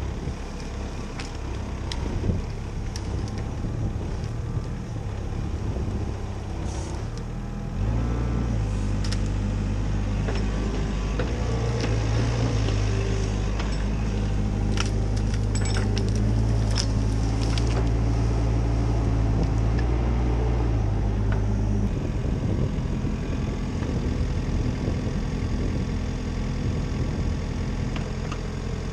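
CAT 304CR mini excavator's diesel engine running, much louder from about eight seconds in until about twenty-two seconds in, then settling back. Scattered sharp knocks and clanks sound during the louder stretch.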